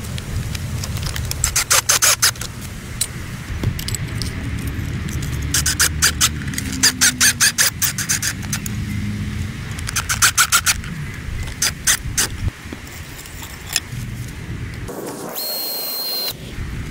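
Power drill running in spells against a brick wall, driving through a metal mounting plate, with several short runs of rapid clicking and a brief high whine near the end.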